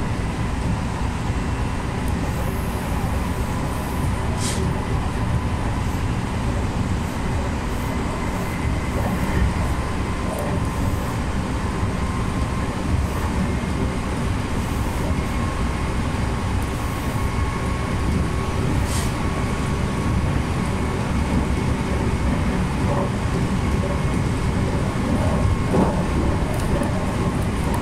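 Meitetsu electric train running along the line, heard from inside the front car: a steady rumble of wheels on rail with a faint steady whine. Two brief high-pitched hisses cut in, one early and one past the middle.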